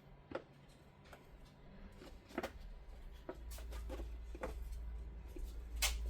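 Scattered small clicks and taps from handling the bag's X-Pac fabric and parts during assembly, the loudest near the end, over a low rumble that builds from about halfway.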